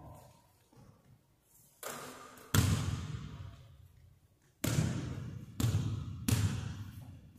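A basketball banging off the hoop and bouncing on a hardwood court: five sharp bangs, each ringing out in the long echo of a large empty gym. The loudest comes about two and a half seconds in.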